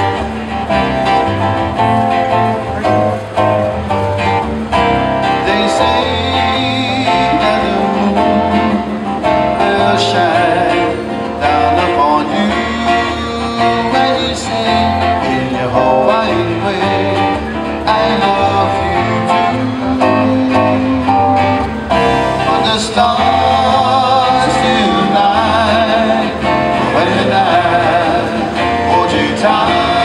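Live trio of strummed acoustic guitar, ukulele and bass guitar, amplified through a PA speaker, with singing coming in about five seconds in after a short instrumental opening.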